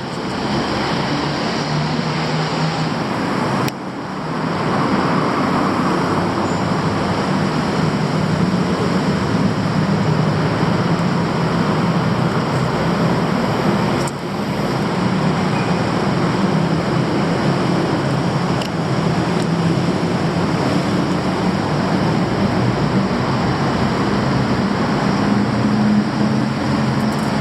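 Dense city road traffic: a steady wash of engines and tyres from vehicles passing close by, with a low engine hum throughout. Two brief sharp clicks break it, about four seconds in and again near the middle.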